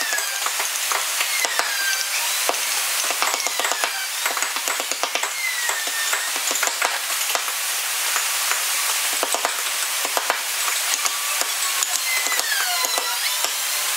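Mallet striking a carving chisel into hardwood, a quick, irregular run of sharp taps over a steady hiss.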